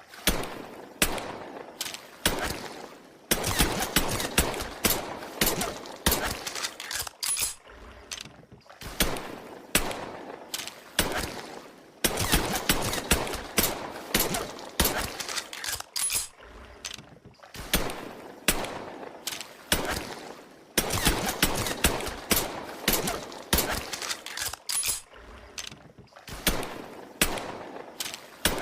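Colt M1911 pistol gunshots fired in quick strings of several shots, each with a short ringing tail. The same run of shots repeats about every nine seconds.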